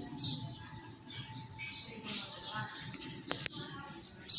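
A bird chirping outdoors, short high calls repeating about every two seconds, with a single sharp click a little past three seconds.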